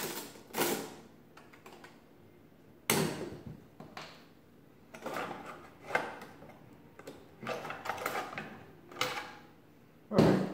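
Metal cover of a 1940s Barrett adding machine scraping and knocking against the machine's base as it is worked loose and lifted off. About seven separate scrapes and clunks with short pauses between them, the loudest near the end.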